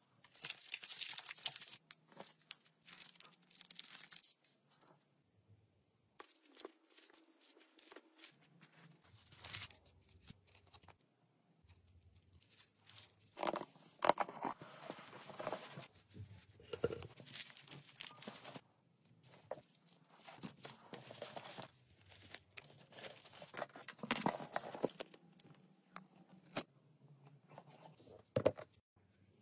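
Kraft paper and wrapping paper rustling, crinkling and tearing in the hands as small items are wrapped, in irregular bursts with short pauses between.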